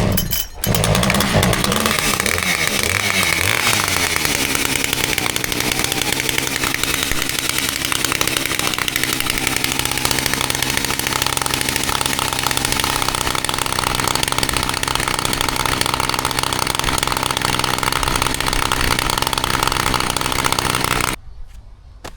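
Husqvarna two-stroke chainsaw engine revving with a wavering pitch for the first few seconds, then running at a steady high speed, cut off suddenly near the end.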